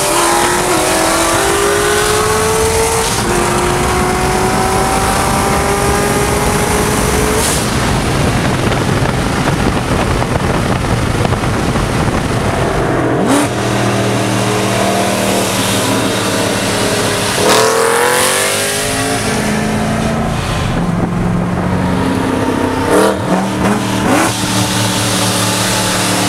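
Modified high-horsepower street cars racing flat out from a roll, heard from a car alongside: the engine pitch climbs through a gear change, then gives way to dense exhaust and wind noise. About halfway through, engines idle with a low, uneven rumble and are revved in short blips near the end.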